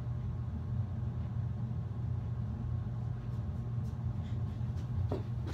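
Steady low background hum, with a few faint clicks near the end.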